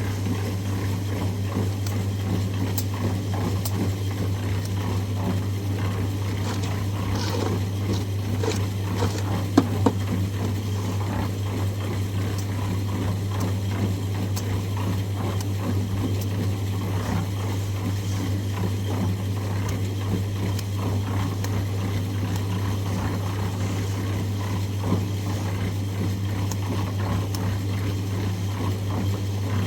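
A steady low machine hum, with a couple of sharp knocks about ten seconds in.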